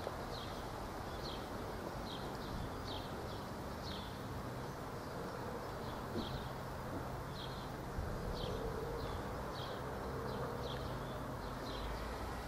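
Short high-pitched chirps, insect-like, repeating irregularly about one to two times a second over a steady low rumble of wind and a slowly approaching miniature steam locomotive.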